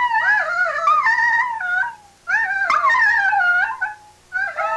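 A small dog howling in long wavering notes, three howls with short breaks between them, with a woman's voice howling along.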